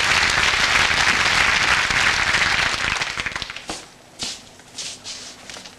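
Studio audience applauding, dying away after about three seconds into a few last scattered claps.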